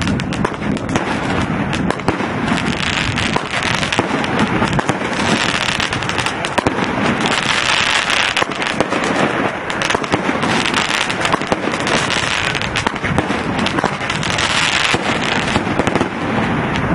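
Aerial fireworks bursting in rapid succession: a dense, continuous crackle of many sharp reports that swells and eases several times.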